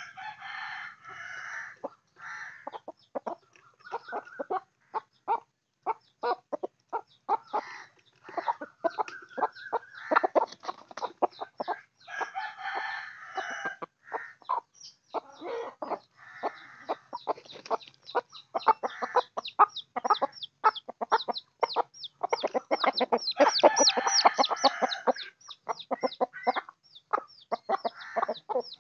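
Chickens pecking grain off hard, bare ground close by: a dense run of quick, sharp taps, several a second. Hens cluck and call in stretches of a second or more, the longest and loudest about three quarters of the way through.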